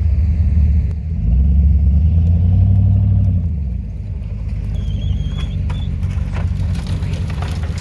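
Hummer H2's 6.0-litre V8 engine pulling hard with the truck stuck in sand: a loud low drone that swells about a second in, then eases off about three and a half seconds in and keeps running lower.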